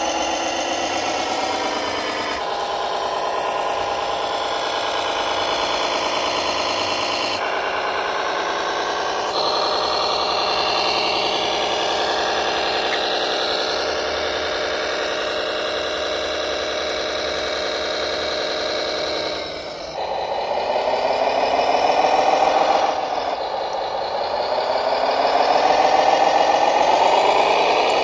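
Drive of a remote-control Claas Axion model tractor running under load as it pulls a round baler through sand. It makes a steady mechanical drone that jumps abruptly in pitch a few times and rises twice near the end as the tractor speeds up.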